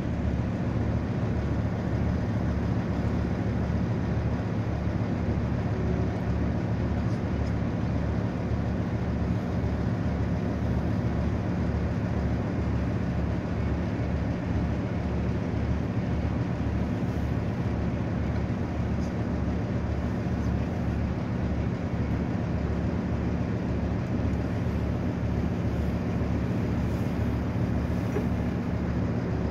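Passenger boat's engine running at steady cruising speed, a constant low drone with a regular throb about twice a second, over a haze of wind and water noise.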